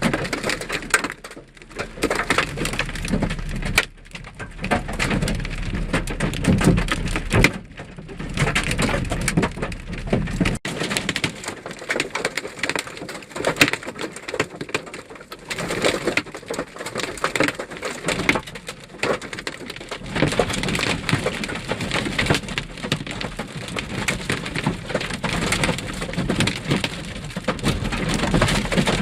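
Large hailstones, about 2 to 2.5 inches across, pelting a vehicle's body and glass in a dense, continuous clatter of hard impacts mixed with rain.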